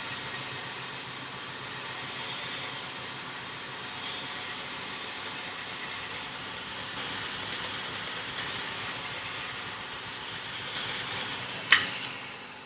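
Cylinder hone running steadily in a cast-iron bore of a Perkins 248 engine block, a steady mechanical noise with a high whine. Near the end it stops with one sharp click and the noise dies away.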